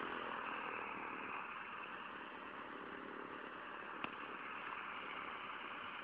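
Waco AQC-6 biplane's radial engine running steadily on the ground, heard from far off, with one small click about four seconds in.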